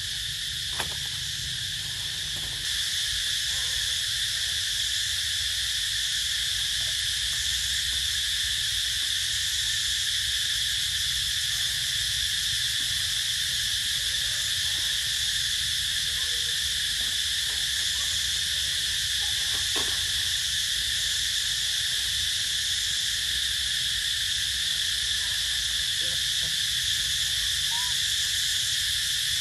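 Steady forest insect chorus, a continuous shrill drone of cicadas and crickets, with a low rumble underneath; it gets slightly louder about three seconds in.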